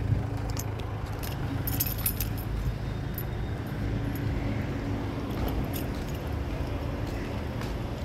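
Busy street ambience: a vehicle engine runs with a steady low rumble, and a few light metallic clinks come about two seconds in.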